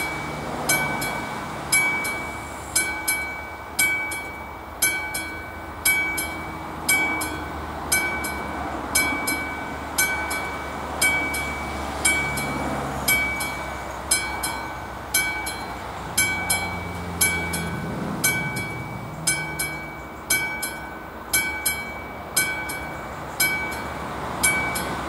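Level-crossing warning bell on an AŽD 71 signal, struck about once a second with a clear ringing tone, while a passenger train rumbles past on the line.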